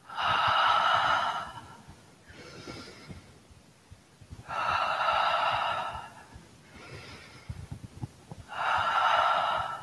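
A woman breathing out the qigong 'ha' healing sound three times, each a long, breathy, unvoiced 'haaa' like a gentle laugh, with softer in-breaths between. It is the heart sound, meant to release energy trapped in the heart.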